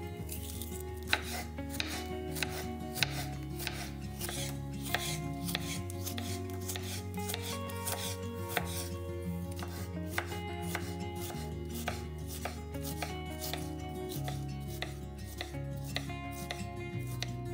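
Kitchen knife slicing small sweet peppers into strips on a bamboo cutting board: a steady run of crisp cuts, the blade tapping the board with each stroke, over soft background music.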